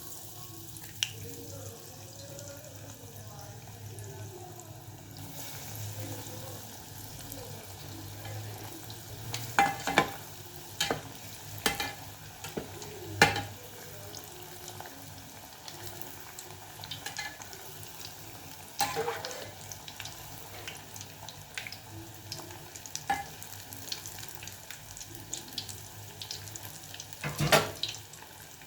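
Breaded Scotch eggs deep-frying in hot cooking oil: a steady sizzle, broken by occasional sharp knocks.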